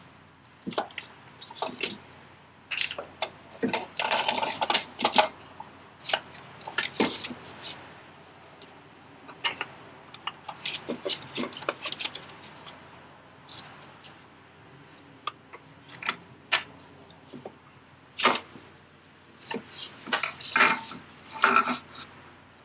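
Irregular metallic clinks and knocks of hand tools, bolts and clutch parts being handled while the clutch disc and pressure plate are fitted to the engine's flywheel.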